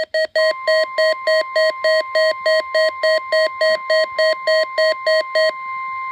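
A weather radio receiver set off by the NOAA Weather Radio test, beeping rapidly at about four beeps a second. Under the beeping, the broadcast's steady 1050 Hz warning alarm tone comes through the radio's speaker from about half a second in. The beeping stops near the end while the tone continues.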